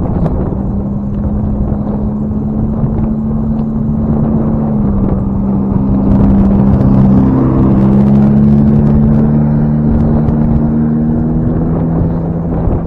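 A motor vehicle's engine running close by, a steady drone that shifts pitch a few seconds in and is loudest midway before fading, over wind buffeting the microphone.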